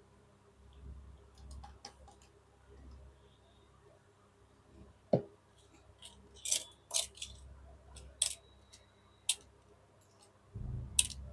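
Scattered small clicks and taps of a 2.5-inch SATA SSD being seated and screwed into an opened laptop, the sharpest clicks coming in the second half.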